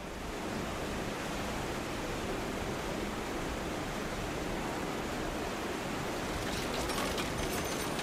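Steady rushing outdoor noise of wind and water, with a few faint crackles near the end.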